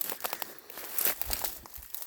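Dry leaves and twigs crackling and rustling underfoot as someone pushes through forest undergrowth: irregular crackles, one a little louder about halfway through.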